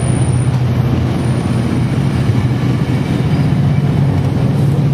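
Bilevel commuter train coaches rolling past close by: a steady, loud rumble of steel wheels on rail with a low drone underneath.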